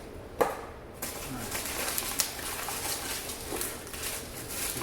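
A sharp click, then rustling and small clicks of cardboard and plastic packaging as a smart lock box is opened and unpacked.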